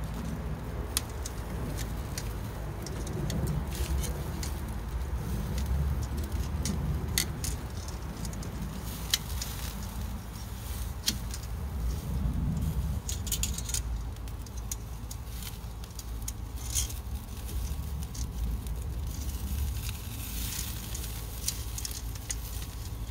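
Metal grill tongs clinking and scraping against a wire-mesh grill screen as vegetables are turned, heard as scattered sharp clicks over a low steady rumble.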